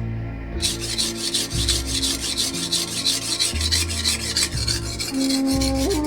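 A knife blade is stroked quickly back and forth on a whetstone, in rapid rhythmic scraping at about five strokes a second. The scraping starts about half a second in and eases off near the end. This is the early sharpening stage on the coarser stones.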